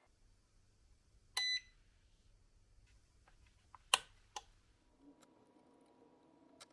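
Electronic ventilation controller giving one short beep, then a few sharp clicks. About five seconds in, a faint steady hum begins, consistent with the exhaust fan switching on.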